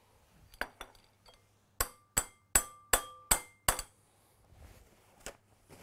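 A metal wire whisk rapped six times against the rim of a glass mixing bowl, about three knocks a second, each with a brief ringing clink, to knock off the thickened whipped cream. A few lighter clinks come before and one after.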